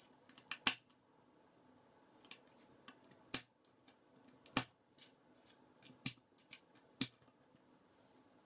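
Plastic K'NEX rods and connectors clicking as they are snapped together by hand: a string of sharp, separate clicks at irregular intervals, five of them louder than the rest.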